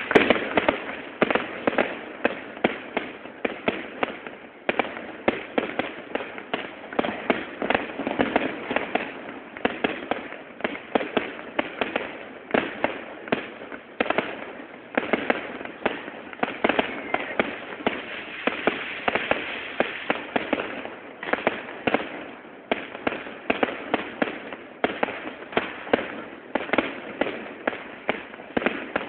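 Fireworks going off without a break: a dense run of sharp bangs and crackles, many a second, from aerial shells and firecrackers.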